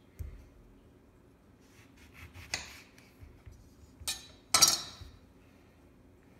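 Knife and citrus fruit knocking and scraping on a glass cutting board as the fruit is cut and the halves are moved: a dull thump near the start, light clicks around two seconds in, then two loud sharp clacks about four and four and a half seconds in.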